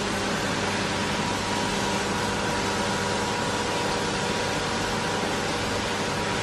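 Miyano BNJ-51SY2 CNC turning center running steadily: an even hiss with a constant hum and a steady high whine.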